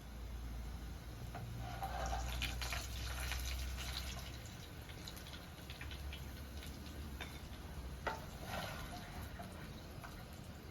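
Water splashing and dripping, with scattered light clicks and knocks.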